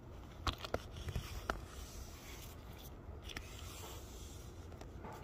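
Handling noise: a quick run of light clicks and knocks in the first second and a half, then faint rubbing and scraping.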